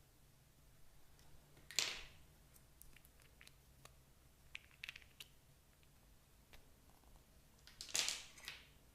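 Slime being mixed and squished by hand: soft sticky clicks and crackles, with two louder squishes, one about two seconds in and one near the end.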